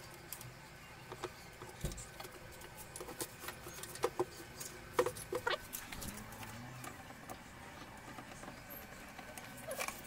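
Scattered light clicks and knocks from handling the steel leg frame of a foldable table, busiest around the middle, with a few short squeaky chirps among them.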